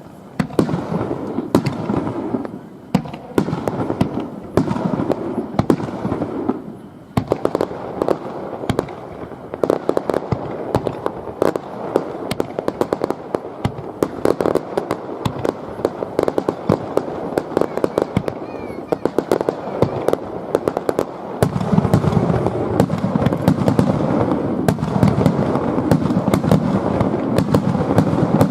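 Fireworks display bursting in rapid succession: a dense stream of sharp crackles and bangs. About three-quarters of the way through it builds into a heavier, deeper barrage.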